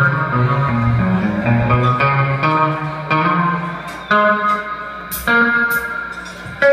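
Live band playing an instrumental passage: guitar over bass and drums, with several sharp accented hits in the second half.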